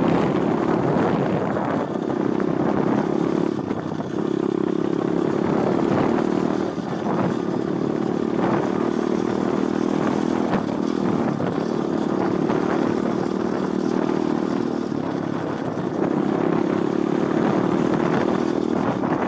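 Pit bike being ridden, its motor holding a steady pitch in stretches of a few seconds that dip briefly as the throttle is eased, over a constant rush of wind and tyre noise.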